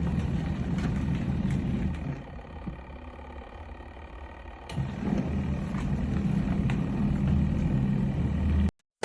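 Mini single-tub washing machine motor running with a low hum. It drops out for about two and a half seconds in the middle, comes back in with a click, and cuts off suddenly near the end.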